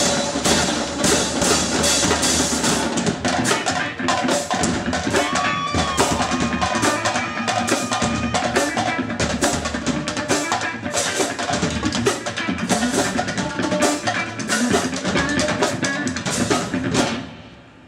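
Marching drumline playing: snare drums, bass drums and crash cymbals striking together in rhythm. The playing stops suddenly about a second before the end.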